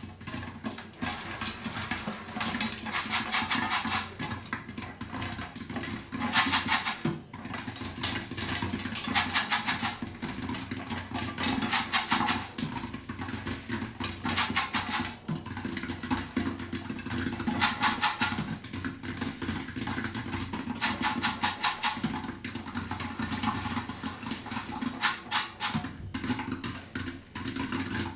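Popcorn kernels popping inside a covered pot on the stove: dense, rapid pops, with a swell of rattling every few seconds as the pot is turned, over a steady low hum.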